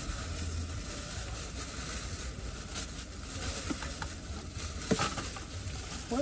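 A plastic takeout bag rustling and crinkling as it is handled, with a few light clicks.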